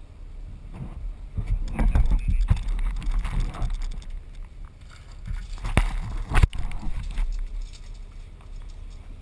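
Handling noise of an action camera being picked up, turned about and set back down: rubbing and rumble on the microphone with clusters of clatter and knocks, the sharpest knock about six and a half seconds in.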